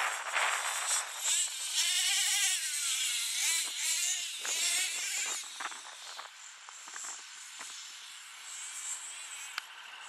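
Twin .26 nitro engines of a Hot Bodies Lightning GTX2 RC monster truck revving up and down as it drives. It is a high-pitched buzzing whine that rises and falls in pitch with the throttle, and grows quieter in the second half.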